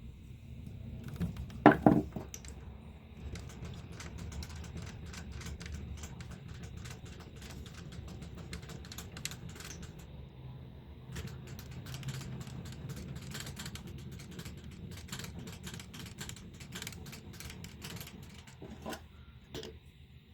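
Metal lathe running with a steady low hum. Many small, irregular metallic clicks and taps sound over it throughout, with a loud sharp double clank about two seconds in and a couple of knocks near the end.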